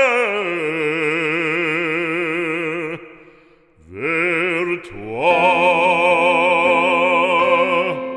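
Operatic voice singing a French sacred song, holding two long notes with a wide vibrato, with a short break between them about three seconds in.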